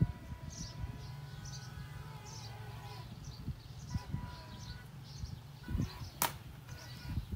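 Small birds chirping repeatedly in short high calls, over a faint steady hum, with one sharp click a little after six seconds in.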